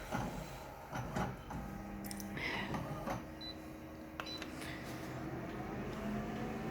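Konica Minolta photocopier running a copy: several mechanical clicks and two short high beeps, then a motor whine that rises in pitch near the end.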